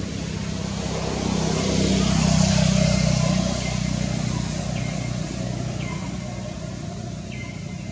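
A motor vehicle passing by: its engine and road noise grow louder, peak about two and a half seconds in, then fade to a steady low hum.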